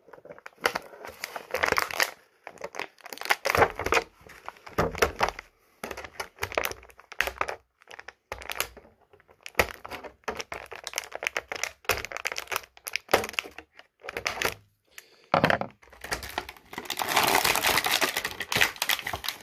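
Clear plastic packaging of a boxed action figure being handled and cut open: irregular crinkling and crackling with sharp clicks as the plastic ties holding the figure are cut. The crinkling becomes denser near the end as the plastic tray is handled.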